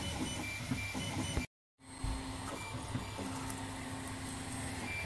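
Wanhao-built FDM 3D printer running a print: a steady hum with stepper-motor tones that hold for a moment and then change or stop as the head moves. The sound cuts out completely for a split second about one and a half seconds in.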